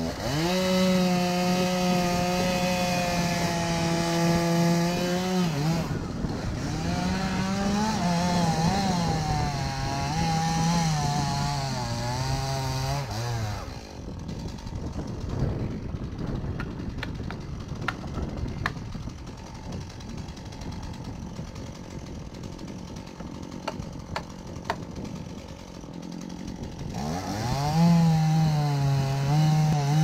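Chainsaw cutting into a standing tree trunk during felling. It runs at full throttle at a steady pitch, then the pitch wavers and dips as the chain bogs in the wood. About halfway through the engine falls quieter and there are scattered sharp clicks and knocks; near the end it revs up again.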